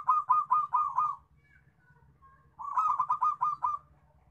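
Zebra dove (perkutut) cooing in two quick runs of clipped, staccato notes, about seven notes a second. The first run ends about a second in, and the second comes about two and a half seconds in.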